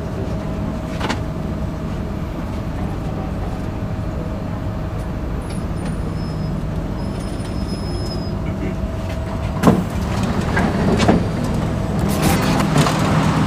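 Inside a Singapore MRT train carriage coming into a station: a steady rumble with a constant hum, then a sharp knock about ten seconds in, followed by the sliding doors opening and passengers stepping off with scuffs and knocks.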